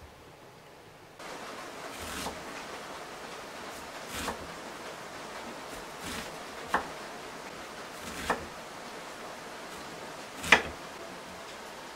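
Steady heavy rain hiss that starts about a second in. Over it are six separate strokes of a chef's knife chopping onion on a wooden cutting board, the loudest near the end.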